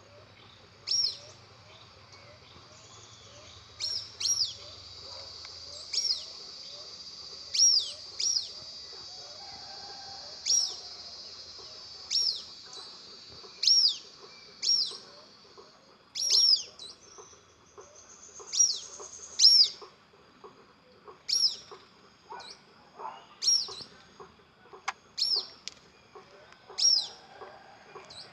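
A bird calling over and over: short, sharp chirps, each sliding quickly down in pitch, coming singly or in quick pairs every second or two.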